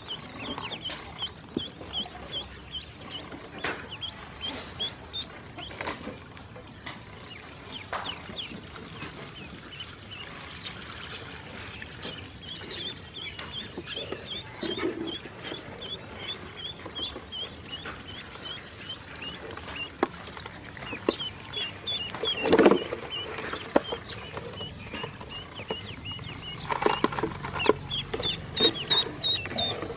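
Ducklings peeping in long runs of short, quickly repeated high chirps, with scattered light knocks and a single louder thump about two-thirds of the way through.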